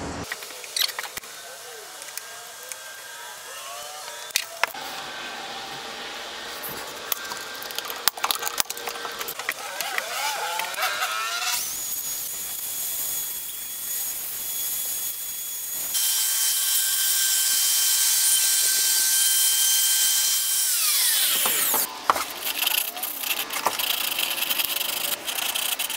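Handling clicks and knocks, then an electric plunge router running with a steady high whine, louder while it cuts a finger-pull recess in a drawer front through a jig. The router spins down with a falling whine. Near the end comes the scratchy rubbing of sandpaper worked by hand on the routed edge.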